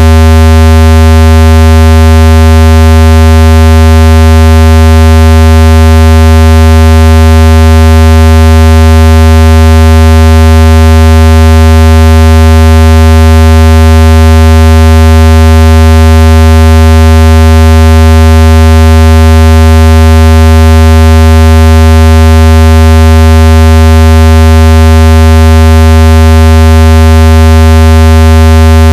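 Speaker-cleaner tone: a loud, steady, low buzzing tone with many overtones, holding one pitch without change, played to shake water and dust out of a phone speaker.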